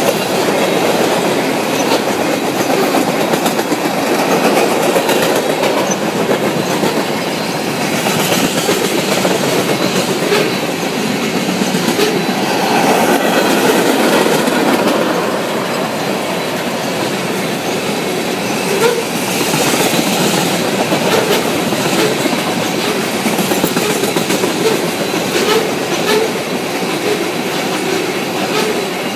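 Cars of a long CN freight train rolling past close by: a steady rumble of steel wheels on rail, with repeated clickety-clack over the rail joints.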